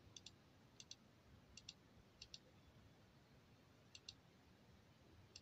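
Near silence with faint double clicks, each pair a quick tick-tick, repeating about five times at uneven intervals.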